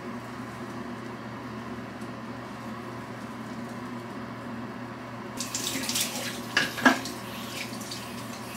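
Water running and splashing at a sink for about two seconds past the middle, with a sharp knock near its end, over a steady low hum of room tone.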